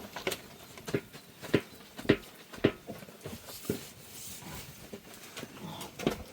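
Footfalls at a steady walking pace, about two knocks a second, fading out after a few seconds.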